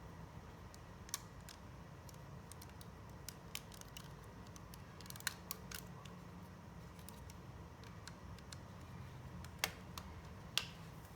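Scattered small clicks and taps of LEGO plastic parts being handled, faint over a steady low hum, with two louder clicks near the end.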